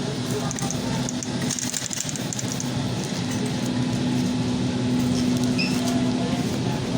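A shopping cart rattling as it is pushed along a grocery store aisle, over a steady low hum.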